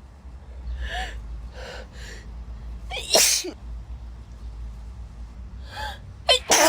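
A woman in a sneezing fit: short gasping in-breaths build up to a loud sneeze about three seconds in, then more gasps and two sneezes in quick succession near the end.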